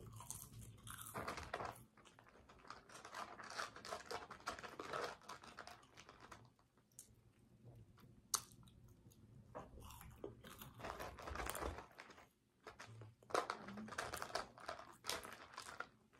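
A person chewing food close to the microphone, wet chewing and crunching in irregular bursts with short pauses between, and a sharp click about halfway through.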